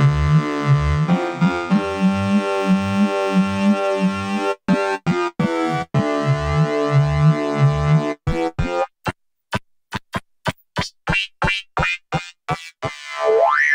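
Novation Circuit Tracks synth engine playing a sequenced preset pattern with pulsing low notes. About halfway through it changes to short, separate blips with silent gaps between them, and a rising pitch sweep comes near the end.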